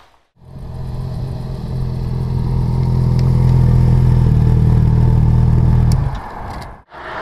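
Motorcycle engine idling steadily, close to a camera mounted on the bike; it stops about six seconds in. Near the end comes a steady hiss of outdoor noise.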